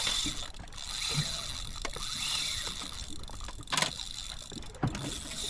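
Fishing reel whirring and clicking as a large hooked fish pulls on the line, its high drag whine fading about halfway through. A few sharp knocks come near the end.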